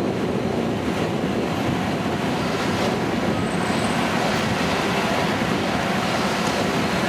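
A steady, loud rushing noise with no distinct events, which builds up just before and then holds level.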